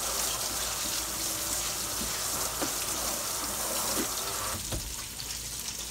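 Kitchen sink tap running as hands are washed under it, turned off about five seconds in. Oil frying in a skillet sits faintly underneath.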